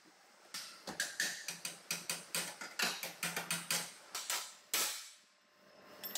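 Hand tools working on a car's bare steel front-end structure: a quick run of sharp metallic clicks and knocks, about four a second, ending in a louder knock.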